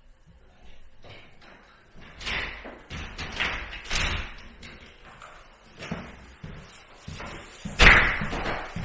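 A series of separate thumps and knocks, a few seconds apart, the loudest near the end, like doors and objects being handled in a house.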